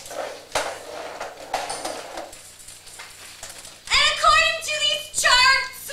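A high voice singing two long held notes about four seconds in, after a few seconds of indistinct room noise with one sharp click.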